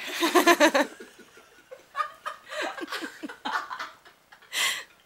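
People laughing. A loud burst of laughter comes at the start, then more bouts of laughing follow, and there is a short breathy burst near the end.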